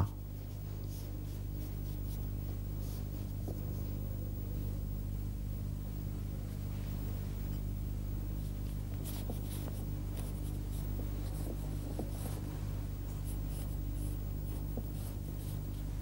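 A Chinese ink brush swishing and brushing softly across paper, a few faint strokes mostly in the second half, as ink branches are painted. Under it runs a steady low electrical hum.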